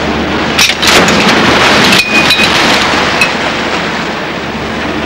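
Sea water rushing and splashing as a recovery basket of syntactic-foam floats in a metal frame plunges into rough water, loudest about a second in and easing toward the end, with a couple of short metallic clinks.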